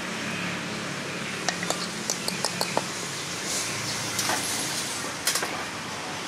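Sharp metallic clinks and knocks, like utensils and bowls being handled at a street food stall. There are about half a dozen in quick succession a second and a half in, and a few more near the end, over a steady hum of street traffic.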